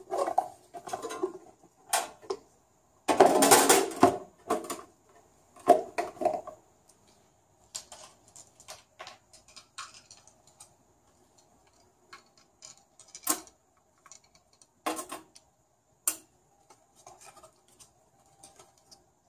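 Clatter and knocks of parts being handled on a stainless-steel espresso machine, with a dense burst of clattering about three seconds in. The plastic water tank is fitted into its opening on top, and then small thermostats are set down on the steel top panel with scattered sharp clicks.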